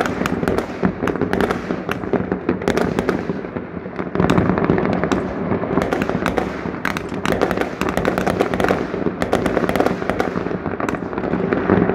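Many fireworks going off close by: a continuous barrage of bangs and crackling from rockets and aerial shell bursts, getting a little louder about four seconds in.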